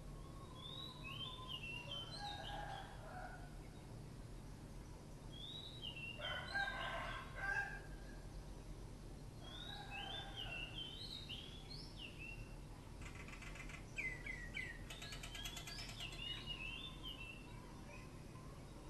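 Roosters crowing three times, the middle crow the loudest, while small birds chirp short repeated high phrases throughout.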